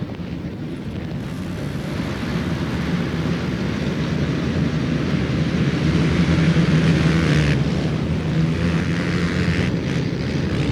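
A full row of race ATVs revving together and launching off the start line as a pack. The engines grow louder, peak about six to seven seconds in, then ease off a little.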